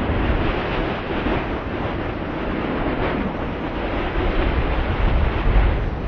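Strong wind blowing steadily, a rushing hiss over a low rumble of gusts buffeting the microphone, with a slightly stronger gust near the end.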